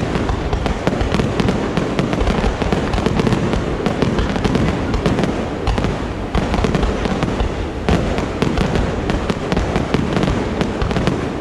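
Fireworks going off in a rapid, dense barrage: many bangs and crackles a second, overlapping without a pause.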